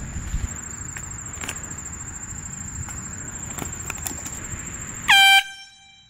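Handheld canned air horn blasted once near the end: a single short, very loud honk of about a third of a second, its pitch dropping slightly as it starts, cut off abruptly.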